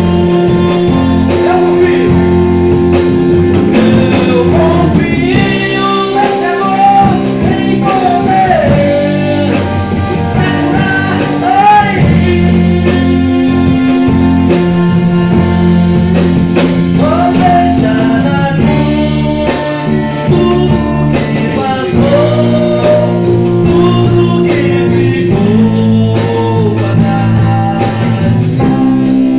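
Live band playing a gospel song in an instrumental stretch: a lead melody line that slides and bends in pitch over held bass notes and a steady drum beat.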